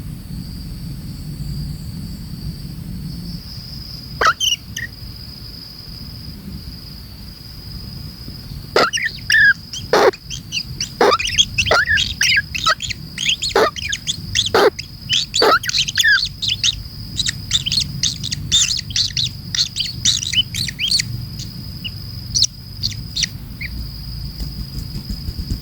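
Kingfisher calling in a fast run of sharp, chattering notes, some sweeping steeply downward. The calls begin with a single note, grow dense for about twelve seconds, then trail off. A steady high insect drone runs underneath.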